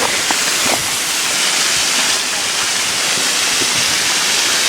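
Waterfall cascading close by: a steady, loud rush of falling water.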